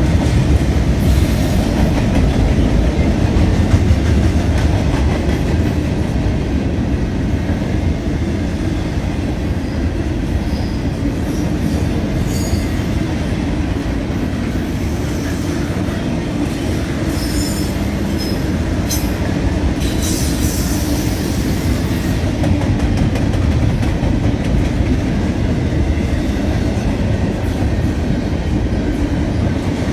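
A long train rolling past with a steady low rumble, its wheels squealing high on the rails about a third of the way in and again past the middle.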